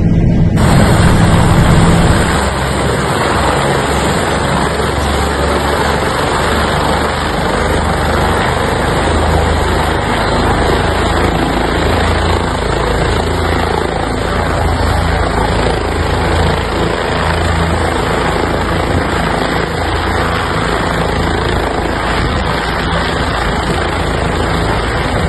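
Helicopter running: a loud, steady rush of engine and rotor noise with a low, uneven throb, starting about half a second in.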